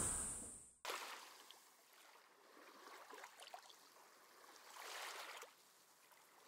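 A steady high-pitched insect drone over the hall's ambience, fading out and cutting off within the first second. Then near silence with a few faint, soft swells of hiss.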